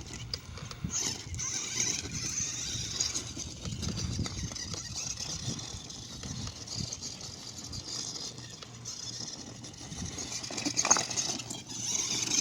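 RC rock buggy driving over rough ground: a high whine from its Holmes Hobbies Stubby Puller Pro brushless motor and transmission gears rising and falling with the throttle, over the rattle and crunch of the chassis and tyres on the terrain.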